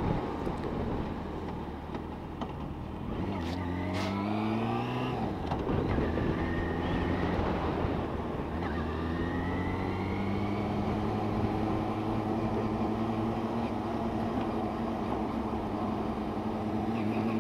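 Motorcycle engine heard from on board, accelerating through the gears: the pitch rises three times with a break at each gear change, then holds steady at cruising speed.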